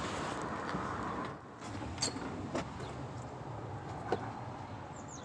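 Quiet background noise with a few short, light clicks and knocks, the last about four seconds in as a wooden door is opened.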